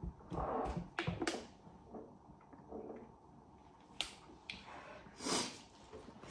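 Quiet eating noises: a few light clicks and knocks of utensils against a bowl, with short breathy sounds around the start and again near the end.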